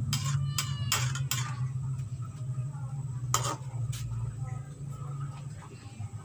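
Metal ladle clinking and scraping against a nonstick pan while stirring cassava leaves in boiling water: four quick knocks in the first second and a half, two more about three and a half and four seconds in, over a steady low hum.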